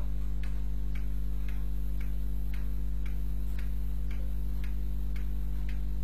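Regular ticking, about two ticks a second, over a steady low hum.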